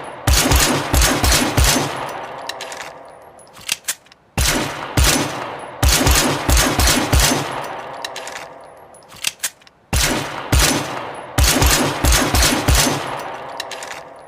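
Three bursts of rapid sharp shots, like automatic gunfire, each with a long echoing rumble that dies away over a few seconds. The bursts come about five and a half seconds apart.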